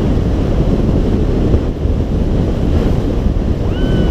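Heavy wind buffeting on the microphone over the rushing water of a small motorboat planing at speed.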